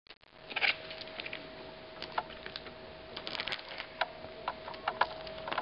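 Scattered light clicks and taps from handling a MacBook Pro laptop and its charger cord, over a faint steady hum.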